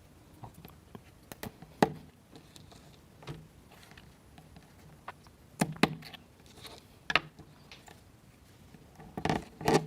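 Light clicks and taps of wooden toothpicks and small plywood kit parts being handled, a few scattered knocks with short pauses between them.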